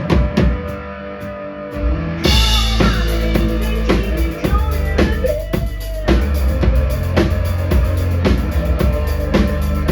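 A live band playing, with the drum kit's bass drum and snare driving a steady beat. About two seconds in, the full band comes in much louder and heavier.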